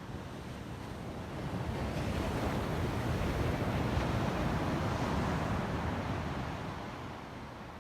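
Ocean surf: one wave swells, breaks and washes in, loudest mid-way and then fading, with some wind on the microphone.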